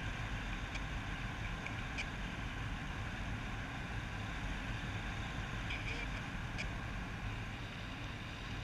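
Steady rushing and low humming of flight noise on an airborne camera's microphone, constant throughout, with a few faint ticks.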